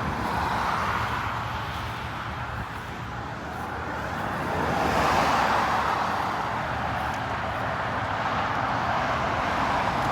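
Road traffic noise from cars driving by, a steady tyre and engine hiss that swells as a vehicle passes about halfway through.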